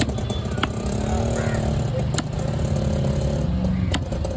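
A motor vehicle's engine running close by, holding a steady note that glides slightly, with three sharp knocks spaced over the few seconds.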